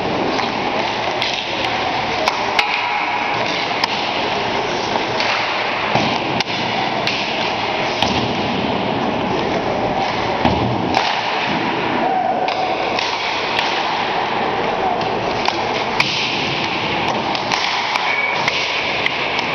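Hockey pucks being shot at a goaltender: sharp cracks of sticks striking pucks and pucks hitting the goalie's pads, coming at irregular intervals. Under them runs a steady hiss of skates on the ice and rink noise.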